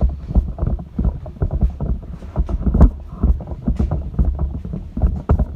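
Handling noise on the microphone of a camera being carried: a continuous low rumble with irregular knocks and rubbing, one knock near the three-second mark louder than the rest.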